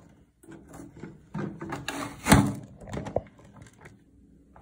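Hard plastic kitchen dicer being worked: the hinged lid is pressed down to push green capsicum through the grid blade, with handling clatter and one sharp clack a little over two seconds in, then a smaller knock about a second later.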